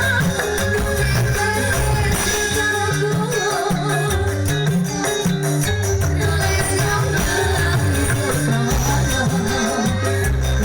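Live dangdut band music with singing over a steady bass and drum rhythm.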